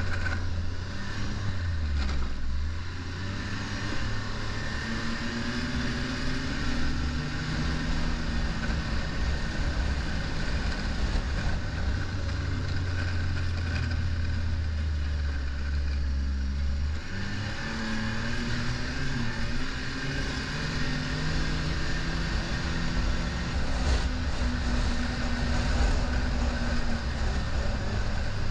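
Ski-Doo snowmobile engine running under way, heard from the rider's seat. It drones steadily, its pitch dipping about two seconds in and rising and falling again later with the throttle.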